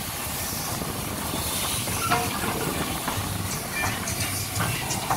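Southern Railway Schools class steam locomotive No. 926 standing with steam hissing steadily, with a few short clicks and knocks about halfway through.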